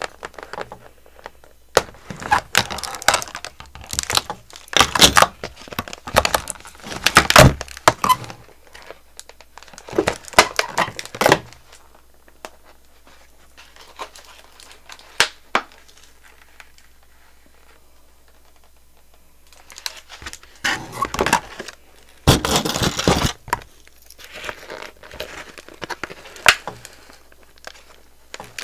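Plastic and cardboard doll packaging being handled and pulled apart: bursts of crinkling and tearing, with a quiet stretch in the middle.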